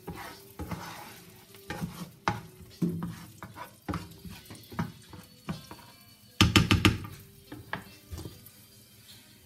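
Spatula stirring diced onion frying in oil in a frying pan, scraping and clicking against the pan over a light sizzle. About six and a half seconds in there is a brief run of loud, quick knocks.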